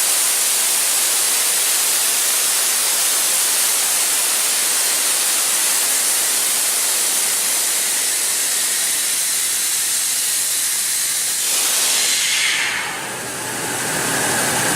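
Compressed air hissing steadily out of a diesel portable screw air compressor. About three-quarters of the way in the hiss dies away, leaving the lower, steady hum of the running machine.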